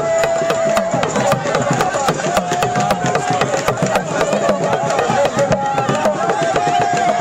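Fast drumming with long, wavering held notes over it, a sung or played melody line.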